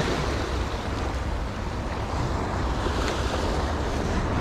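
Sea surf washing and foaming over shoreline rocks in a steady wash, over a continuous low rumble on the microphone.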